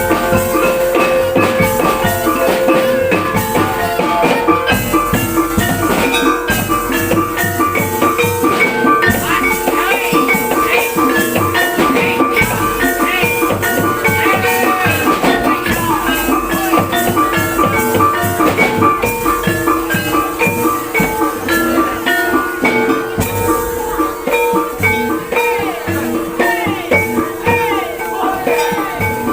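Javanese gamelan music for barongan, with metallophones ringing out repeating melodic patterns over drums, loud and unbroken.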